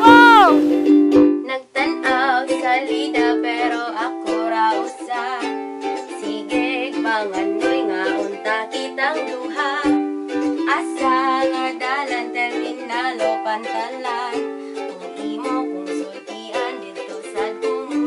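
Ukulele music: quick plucked and strummed notes in a steady rhythm.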